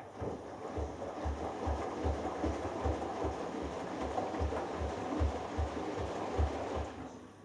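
Hoover Dynamic Next DXA610IW3 washing machine on its delicates wash: the drum turns the wet load for about seven seconds, with a rushing noise and low thumps about three times a second, then stops.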